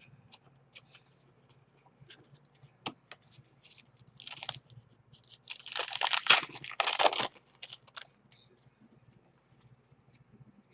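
Trading card pack wrapper being torn open and crinkled, loudest in two stretches around the middle, with light clicks and rustles of cards being handled around it.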